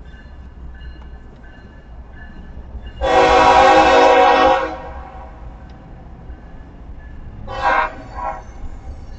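CSX diesel freight locomotive's air horn sounding a chord of several tones: one long blast of about a second and a half, then a short blast about three seconds later, over a steady low rumble.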